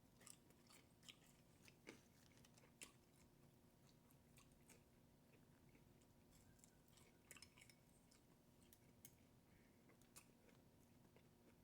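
Faint chewing: scattered soft mouth clicks and crunches of eating, over a quiet room.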